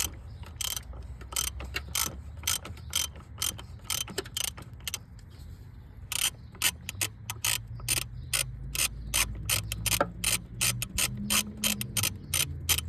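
Ratchet wrench with a 24 mm socket clicking steadily, two or three clicks a second, as it spins off the oil filter housing cap of a 3.6-litre V6. The clicks thin out briefly about five seconds in.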